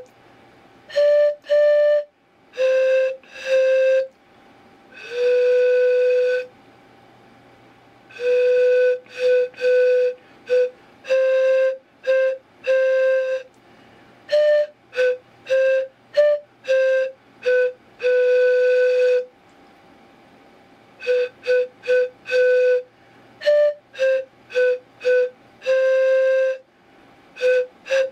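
Pan pipes playing a solo melody: long held notes mixed with quick runs of short notes, in phrases with short pauses between them.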